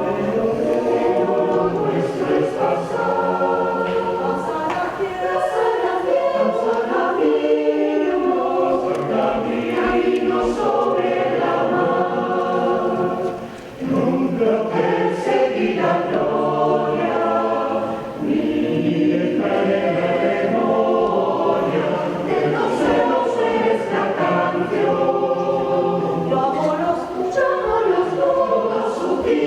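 Choir singing sustained chords, with a short break between phrases about halfway through.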